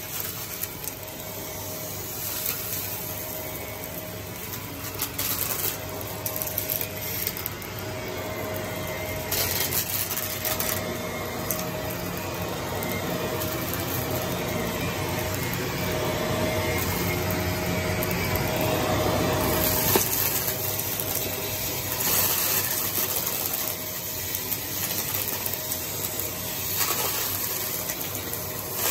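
Vacuum cleaner running steadily over a floor with a constant motor hum. Bursts of clicking and rattling come at intervals as small bits of debris are sucked up.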